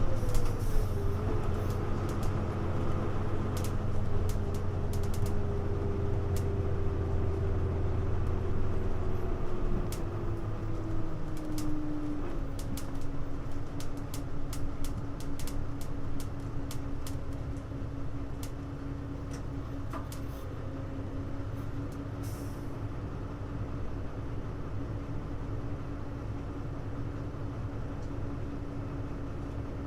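Interior running sound of a Hino U-HU2MLAA city bus slowing down: a whine falls steadily in pitch and the heavy engine rumble fades over about ten seconds. The bus then settles into a quieter steady hum with a single held tone. A run of light ticks comes in the middle.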